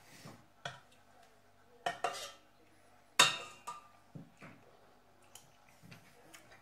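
Spoon and stainless steel pots clinking and knocking on the stove top, with a sharp ringing clink about three seconds in and lighter knocks and scrapes around it.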